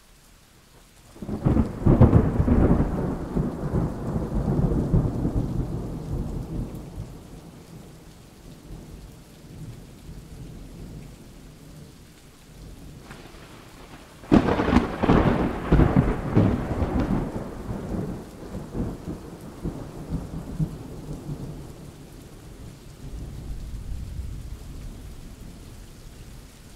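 Rain falling steadily through a thunderstorm, with two peals of thunder: a crack about a second in that rolls and fades over several seconds, and a second sharp crack about halfway through that rumbles on, followed by fainter low rumbles near the end.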